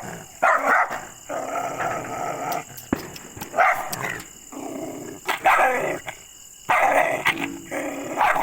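A dog barking aggressively in loud bursts every second or two, with growling between the barks.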